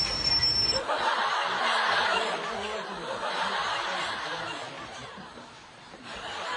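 Laughter, loudest in the first couple of seconds and fading away toward the end.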